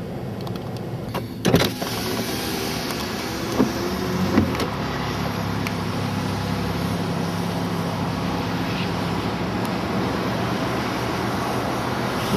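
Car's electric power window motor running, with a few sharp knocks in the first few seconds, then a steady low hum from the car.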